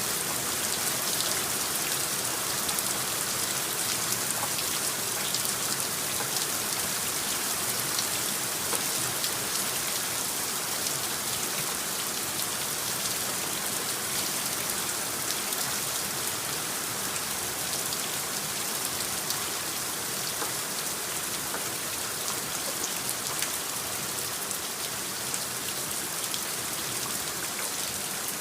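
Steady rain: a dense hiss of rainfall with many small drop ticks, even throughout, from a rain sound overlay laid over the footage.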